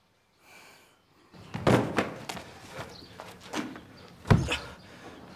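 A moment of near silence, then a series of thuds and knocks about every half second, the loudest about four seconds in.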